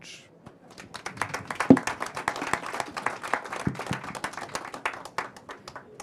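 A small audience applauding, starting about a second in and fading out near the end.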